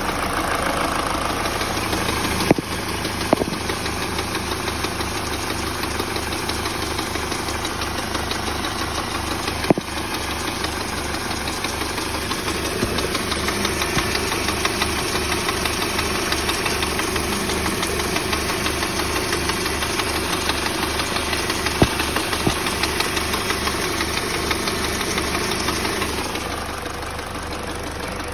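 Peugeot 308 engine running with a terrible, regular knocking from under the bonnet, caused by the alternator belt. The sound drops a little in level near the end.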